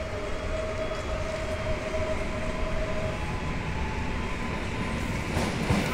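A train running on the line: a steady rumble, with a faint steady tone over it that stops about halfway through.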